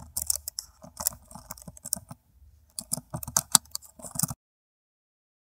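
Keyboard typing sound effect: runs of rapid key clicks with a short pause about halfway, stopping abruptly a little past four seconds in.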